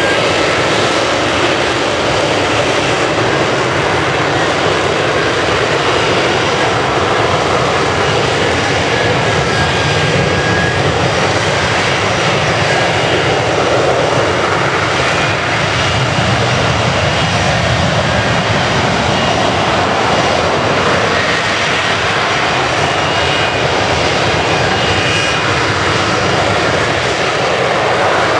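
F-35B's jet engine and shaft-driven lift fan running at hover power: a loud, steady rush of jet noise with faint high whining tones in it.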